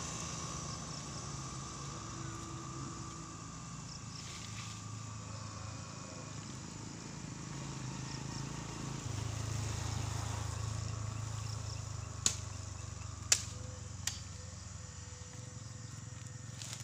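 Dry bamboo stalks being dragged out of dead grass and brush, with three sharp cracks of dry bamboo about a second apart near the end, over a steady low hum.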